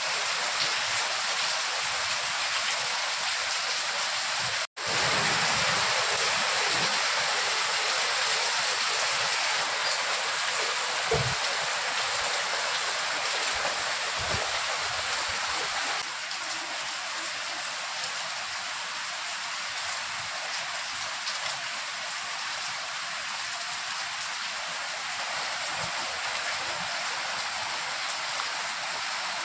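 Steady rain falling, an even hiss that eases slightly about halfway through.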